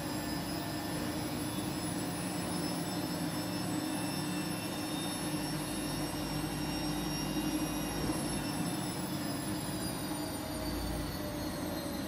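Front-loading washing machine running a spin, its motor whining with a pitch that rises slowly, then falls from about eight seconds in, over a steady low hum.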